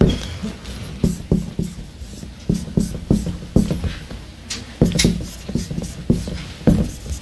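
Marker pen writing on a whiteboard: a quick run of short strokes and taps.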